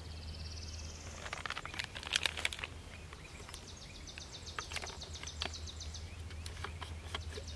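Outdoor ambience with a small bird singing rapid, high trills: one brief trill at the start and a longer one from about three seconds in. Light clicks and rustles of handling plaster containers and a plastic water bottle sound over a steady low rumble.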